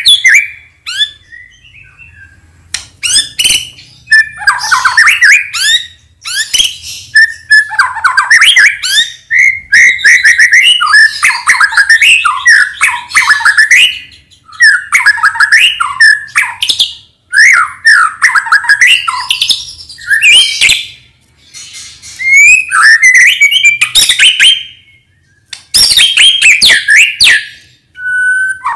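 White-rumped shama (murai batu) in full, vigorous song, a varied song packed with mimicked calls. It sings loud phrases of rapid whistles and sharp ticks, each lasting one to four seconds, with short pauses between.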